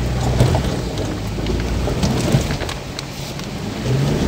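Toyota Land Cruiser 100 crawling over a rocky creek bed: a low, steady engine and drivetrain rumble, with stones crunching and knocking under the tyres and body rattles.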